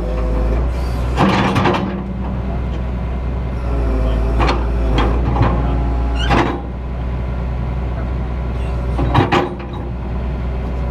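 Excavator's diesel engine running steadily under the operator's seat, with several short, higher-pitched squeals and knocks from the machine's hydraulics and linkage as the controls are worked.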